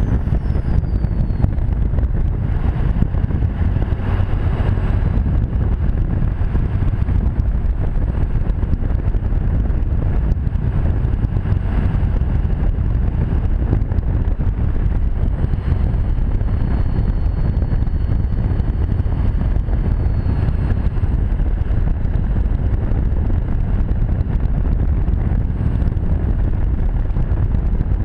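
2001 LB7 Duramax 6.6-litre V8 turbodiesel with a 4-inch straight-pipe exhaust running steadily under way, a loud low rumble. A faint high turbo whistle falls away near the start and comes back for a few seconds in the middle.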